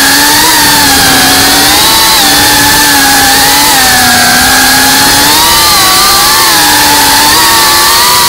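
FPV drone's electric motors and propellers whining loudly as heard from its onboard camera, the pitch rising and falling repeatedly with the throttle.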